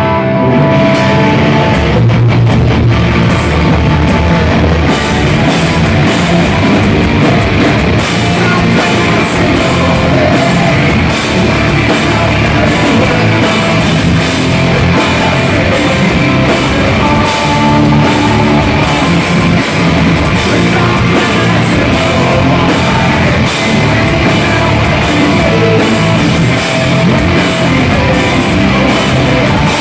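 Heavy metal song in an instrumental stretch with no vocals: distorted electric guitars over a full drum kit, loud and steady throughout.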